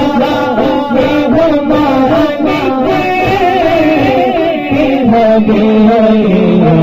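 Men singing a naat (Urdu devotional song) into microphones, the lead voice drawing out long, wavering ornamented notes. A lower held note comes in about five seconds in.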